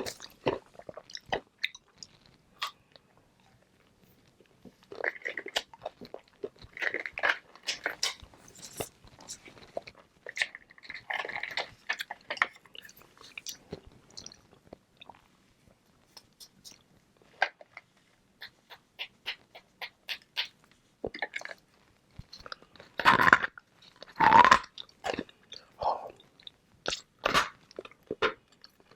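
Close-miked biting and chewing of frozen flavored ice balls: clusters of sharp, hard crunches and cracks with short pauses between mouthfuls, the loudest bites coming about three-quarters of the way through.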